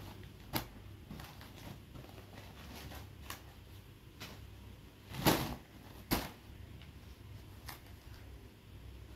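Folded cotton saree being handled and opened out on a cloth-covered surface: soft rustles and small taps, with a louder brief swish about five seconds in and a sharper one a second later.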